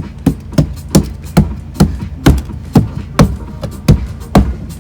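A run of sharp, heavy knocks, about two a second and slightly uneven, over a steady low hum.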